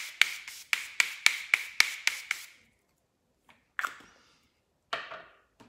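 Pump-spray bottle of Chanel Hydra Beauty Essence Mist spritzed onto the face as a makeup setting spray: about ten short hissing sprays in quick succession, roughly four a second, then two more separate sprays a little later.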